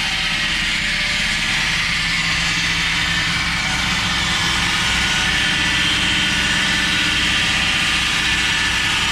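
Concrete saw cutting a doorway through a poured concrete foundation wall: a steady high grinding hiss over the low, even run of an engine.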